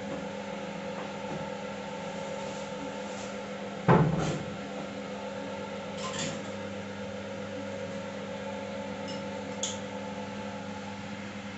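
Steady mechanical hum made of several constant tones. A single sudden thump comes about four seconds in, and a light click near the end.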